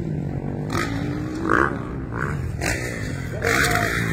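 Motocross dirt bike engines revving, with one rising in pitch about a second in.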